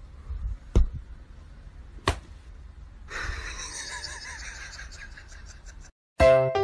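Two sharp slaps of a hand on a tatami straw-mat floor, then a few seconds of rustling; music starts near the end.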